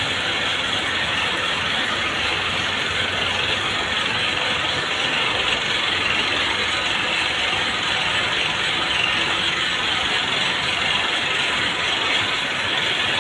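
Cord-making machinery running steadily: belt-driven braiding and winding machines with spinning bobbins, giving a dense, even mechanical noise.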